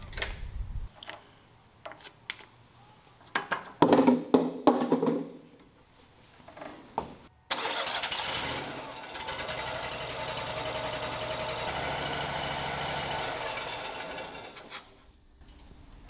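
A Kohler gas engine on a sawmill is started about halfway through, runs steadily for several seconds, then is shut off and winds down near the end. This is the first run after an oil change, to circulate the new oil through an oil filter that was put on dry. Before the start there are a few clicks and knocks of handling at the engine.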